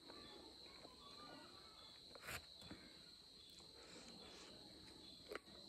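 Faint, steady cricket chirring in the background, with a couple of soft clicks from eating with the hands, about two seconds in and again near the end.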